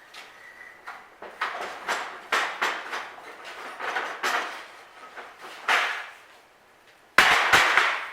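Steel gate-latch pieces knocking and clanking against a homemade metal bender as the loops are bent: a string of separate metallic knocks, some ringing briefly, then a loud burst of clattering metal near the end.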